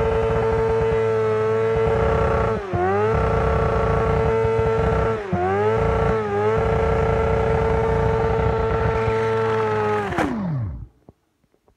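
Honda CBR600F4i inline-four sport bike engine held at high revs during a fourth-gear burnout, its rear tyre spinning. Three times the revs dip briefly and climb back, and about ten seconds in they fall away fast and the sound stops.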